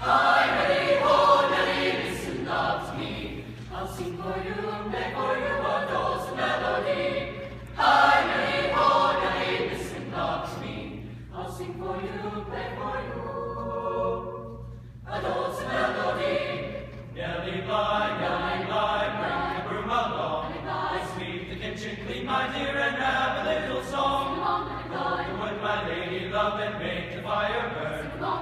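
Mixed-voice choir singing together, coming in strongly right at the start. The sound thins briefly about halfway through, then the full choir comes back in.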